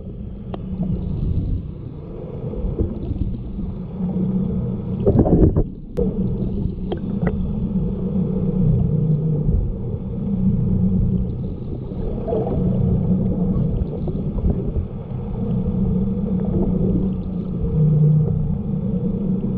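Boat engine running with a steady low drone, with a brief louder burst of noise about five seconds in.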